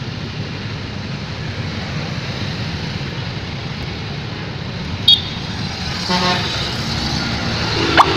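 Steady road traffic and bus engine noise. About six seconds in, a bus's multi-tone 'telolet' musical horn starts faintly and gets loud near the end.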